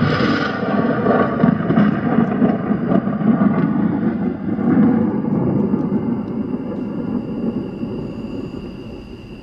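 Recorded thunder sound effect played through a guitar amplifier: a loud rolling rumble that slowly fades away over the last few seconds.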